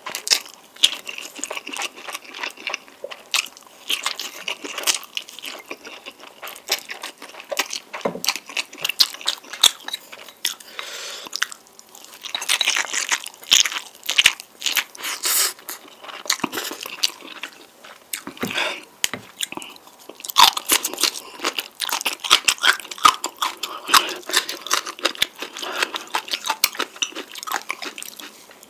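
Close-miked eating of spicy noodles: chewing and crunching bites, many sharp clicks with a few longer noisy stretches.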